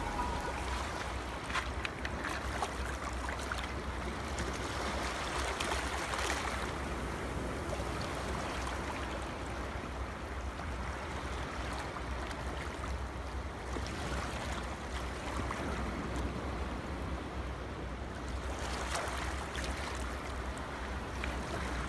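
Steady rushing noise like surf over a low hum, swelling slightly now and then, with a few faint rustles and taps as the card pages of a handmade scrapbook album are handled.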